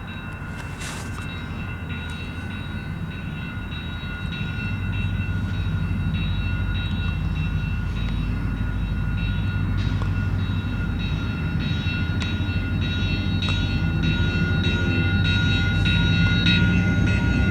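EMD SD40-2W diesel locomotive with a 16-cylinder two-stroke engine, approaching at the head of a freight train; its low engine rumble grows steadily louder. A steady high-pitched ringing sits above it.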